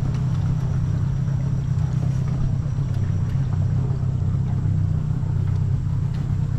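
Small boat's outboard motor running steadily, a constant low hum with no change in pitch.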